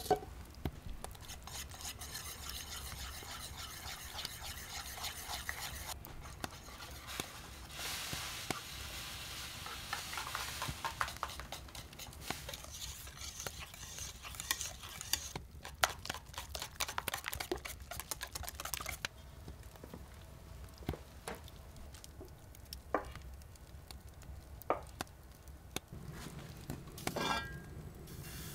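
Food being stirred and mixed in a bowl with a utensil: two long spells of rapid scraping strokes, then a few separate knocks of the utensil on the bowl in the last part.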